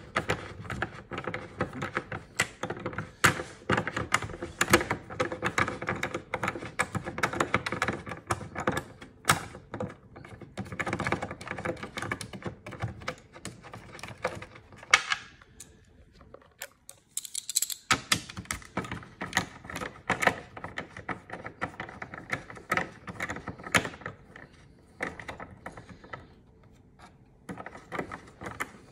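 Hand ratchet with an 8mm socket clicking in quick runs as it undoes the nuts holding a spoiler to a car's boot lid. There is a pause of about two seconds a little past the middle.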